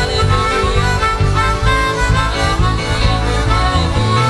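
Instrumental music: a sustained, reedy melody line over a steady bass, with no singing.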